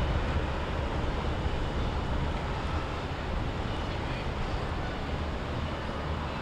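A Cigarette Racing boat's four 450-hp outboard engines rumble steadily at low cruising speed, mixed with wind noise on the microphone.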